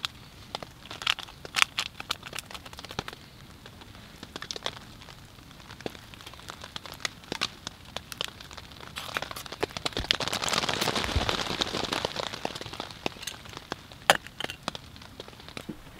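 A metal fork scraping and clicking in a metal camp mug as food is stirred, among small crackles from a wood stove. A hiss swells and fades about ten seconds in, and a sharp clack near the end comes as the lid goes onto the mug.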